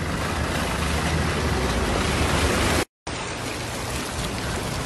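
Fast-flowing floodwater rushing across flooded ground, a steady rushing noise that drops out for a moment about three seconds in.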